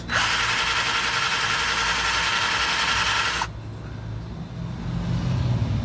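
Electric drill running steadily for about three and a half seconds as it drills a hole in a motor mount, then stopping suddenly, leaving a quieter low hum.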